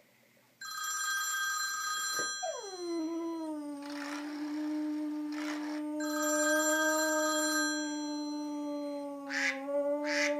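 A phone ringtone plays twice in short bursts of bright tones. A pet howls in response: the howl comes in about two seconds in, falls in pitch, then holds one long steady note to the end.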